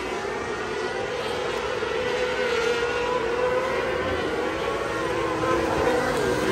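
A pack of 600cc micro sprint cars racing, their high-revving motorcycle engines overlapping and rising and falling in pitch as they go around. The sound grows a little louder near the end.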